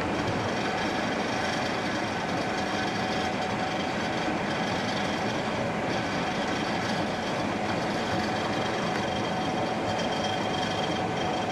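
Gleaner S67 combine running steadily while harvesting soybeans: a constant machine drone with a faint steady whine over it.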